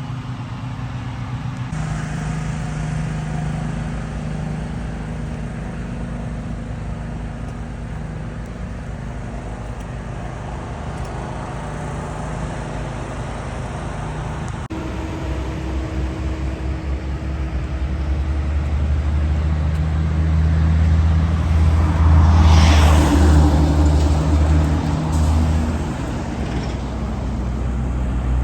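Car engine and road noise from a vehicle driving steadily. There is an abrupt change about halfway through, and a louder swell of noise, as of a passing vehicle, about three quarters of the way in.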